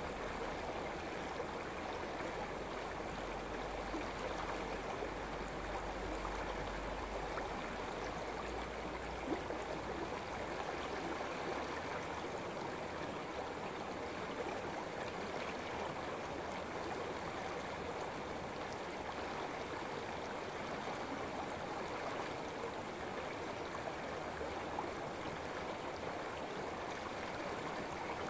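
Shallow forest stream running over rocks and a stony bed: a steady, even rush and babble of flowing water.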